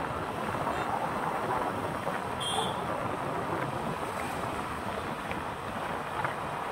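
Steady rushing wind and road noise from a vehicle travelling along a road.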